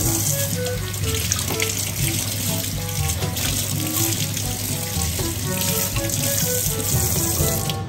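Water from a kitchen faucet running steadily into a stainless steel sink as hands rinse a tomato under the stream, with light background music beneath it.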